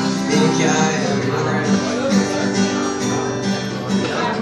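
Acoustic guitar strummed in a live song, an instrumental passage with no singing.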